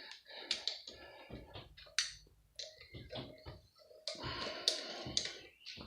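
Light metallic clicks, knocks and short scrapes of tools and bolts being handled on a metal pump casing, irregular, with a busier run of scraping and clatter about four seconds in.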